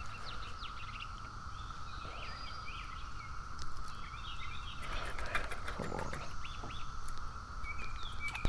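Birds chirping over a steady high drone, with wind rumbling on the microphone and a few light clicks. There is a short rustle about five seconds in.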